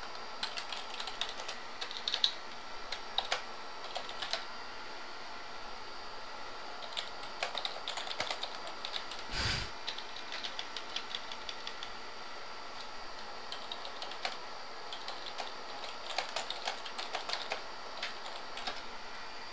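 Computer keyboard typing in short, irregular spurts of clicks, with a single dull thump about halfway through.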